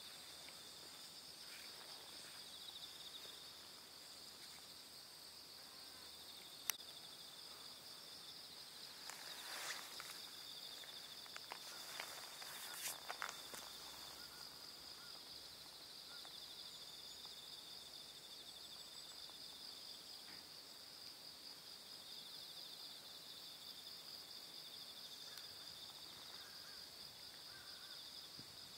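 Faint, steady high-pitched trilling of insects. A few brief rustles and one sharp click about seven seconds in.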